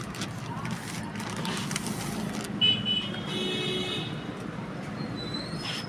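Street traffic noise with a vehicle horn honking briefly about two and a half seconds in, amid scattered light clicks and rustles.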